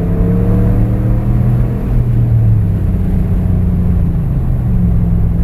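Engine and muffler-deleted exhaust of a 2019 Ram 1500 Classic pickup, its muffler replaced by a straight Y-pipe, heard from inside the cab as the truck accelerates from about 45 to 50 mph. It is a steady low drone, with the engine pitch climbing slightly early on.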